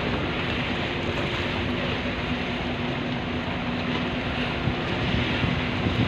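Wind buffeting the microphone over a choppy sea, with waves washing against a concrete harbour breakwater, under a faint steady low hum.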